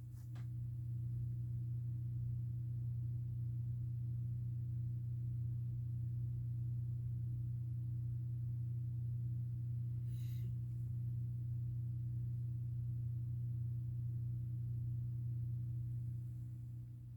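Steady low electrical hum with a few evenly spaced overtones, easing off near the end, with a faint brief hiss about ten seconds in.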